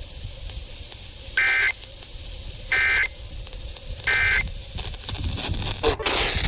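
Three short bursts of EAS digital data screech over radio hiss, each about a third of a second long and about a second and a half apart: the SAME end-of-message code that closes an alert. Near the end, a louder rush of radio static starts.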